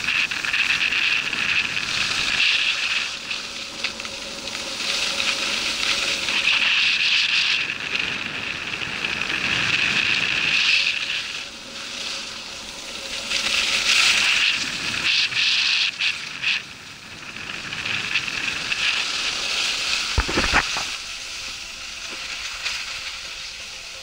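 Skis sliding and scraping over packed snow, a steady hiss that swells and fades every few seconds. A short thump about twenty seconds in.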